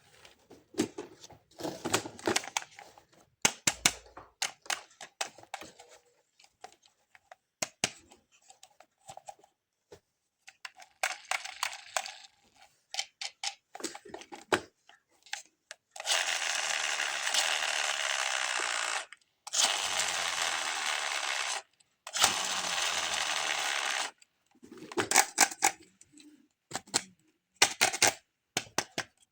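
Toy cars and their packaging being handled: many small clicks, taps and rustles, then three long, even scratchy noises of two to three seconds each past the middle, then more clicks.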